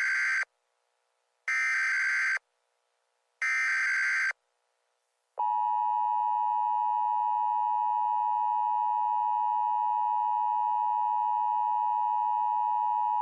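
Emergency Alert System data header: three short screechy digital bursts about two seconds apart. Then the steady two-tone EAS attention signal (853 and 960 Hz together) sounds for about eight seconds, announcing a tornado warning.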